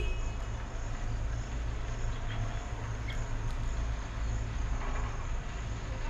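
Steady low background rumble, with a few faint short bird chirps about two and three seconds in.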